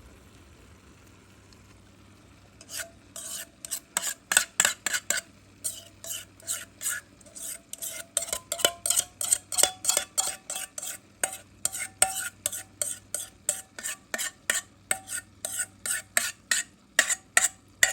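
A utensil scraping the creamy soup mixture out of a mixing bowl in quick repeated strokes, about two or three a second, starting a few seconds in, with a faint ringing of the bowl under them.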